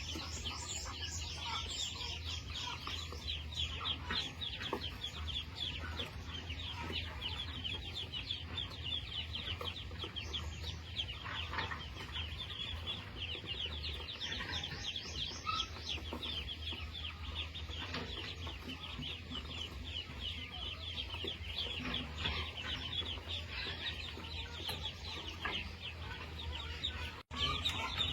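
A flock of chickens calling continuously, a dense mass of overlapping short high calls, over a steady low hum.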